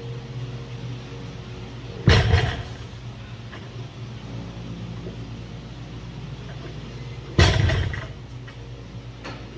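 A barbell loaded with 315 lb of Eleiko bumper plates is set down on rubber gym flooring twice, about five seconds apart, each a sharp impact that dies away over about half a second. A steady low hum runs underneath.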